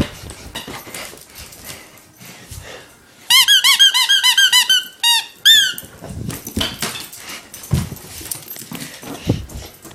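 A squeaky dog toy squeaking rapidly, about a dozen squeaks in under two seconds, each rising and falling in pitch, then two more squeaks. A few dull thumps follow.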